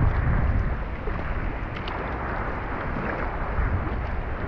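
Kayak being paddled on choppy sea water: water sloshing and splashing against the hull and paddle blade, with wind buffeting the microphone as a steady low rumble.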